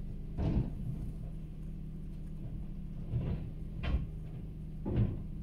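Zoeller rear-loader refuse truck running with a steady low hum while its lifter tips and lowers a yellow plastic wheelie bin. Four knocks, the first about half a second in and three more near the end, as the bin knocks against the lifter and hopper.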